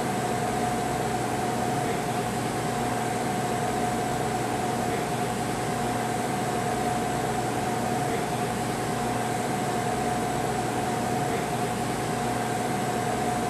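Steady background hum and hiss with a constant mid-pitched tone running unchanged through it.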